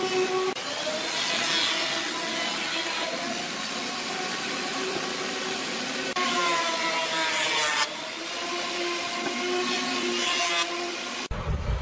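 Wood lathe running with a hum of several steady tones while a turning tool cuts the spinning wood in a rough, scraping noise. The sound changes abruptly several times, and near the end it switches to a low rumble.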